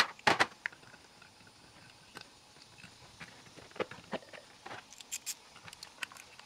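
Sparse light clicks and taps of small T20 Torx screws and a driver being handled and set into a rebuilt Duramax fuel primer pump housing, with the two loudest clicks right at the start.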